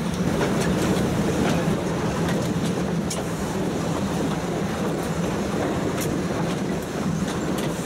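Metre-gauge train wagon rolling along the track: a steady rumble with scattered clicks and knocks from the wheels on the rails.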